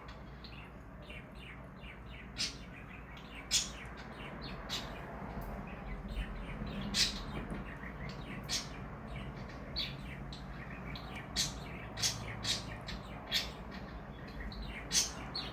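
Pet bird chirping: a dozen or so short, high chirps scattered irregularly, over a faint steady room hum.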